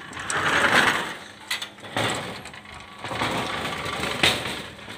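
Aluminium sliding screen door rolling along its track in two rushing swells of about a second each, with a few sharp clicks and knocks of the frame and latch.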